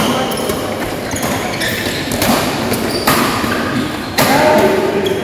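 Badminton rally: sharp racket strikes on the shuttlecock about a second apart, with footfalls on the court, ringing in the hall.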